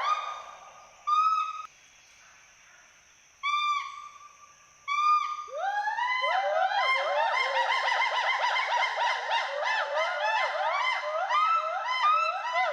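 Western hoolock gibbons calling with rising whoops. At first single whoops come a second or two apart. About halfway in they break into a fast, continuous run of rising-and-falling whoops, two voices overlapping.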